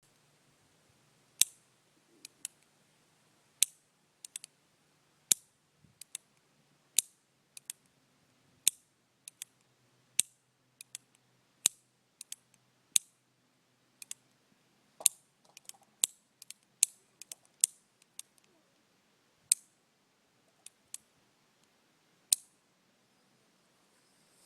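North American Arms mini revolver misfiring: the hammer snaps down with a loud metallic click and no shot, then the lighter clicks of it being cocked again, the cylinder turning to the next chamber. This repeats about a dozen times, every one and a half to two seconds.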